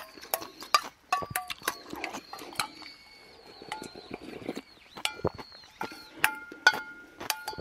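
Eating sounds: chewing and slurping of soup-soaked rice, with metal chopsticks clicking against a stainless-steel bowl. From about five seconds in, some of the clicks leave the bowl ringing briefly.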